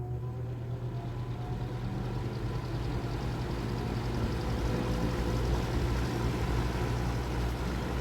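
A 1983–84 Galaxy 20-inch box fan (model 3713) starting up on medium speed: a motor hum with rising tones as the blade spins up, and the rush of air growing over the first few seconds before it runs steadily.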